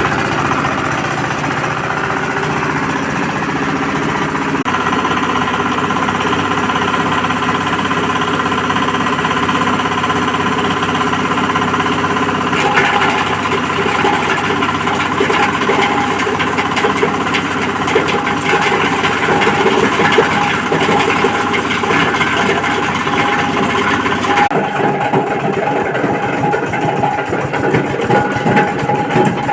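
Cloth-grinding machine running steadily, a motor-driven drum shredding fabric scraps into soft fibre. About thirteen seconds in, a denser, fast rattle joins the steady hum. Near the end the sound changes character and turns thinner.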